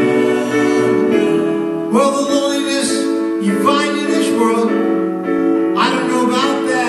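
Live band music: a man singing a slow song over piano and held keyboard chords.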